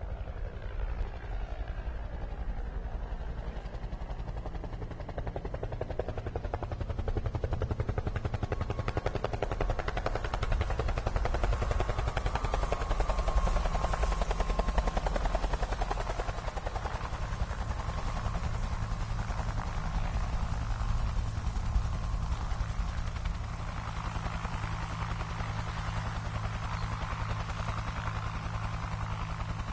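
Helicopter-like rapid rotor chopping over a low, steady drone. It grows louder and brighter about ten seconds in and eases off a little after about twenty-three seconds.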